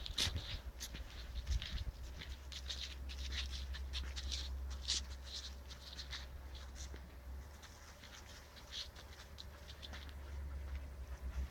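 Irregular rustling and crackling in dry forest undergrowth, heaviest in the first half, over a steady low rumble.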